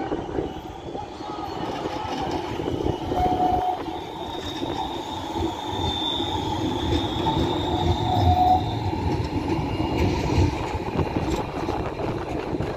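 Articulated low-floor RET Citadis tram rolling past close by: a steady rumble of wheels on rail and traction equipment, with a thin high wheel squeal for a few seconds in the middle.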